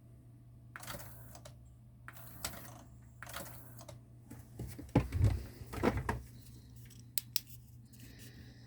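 Akai GX-9 cassette deck being handled and operated: a series of mechanical clicks and clunks, heaviest about five to six seconds in, over a steady low hum.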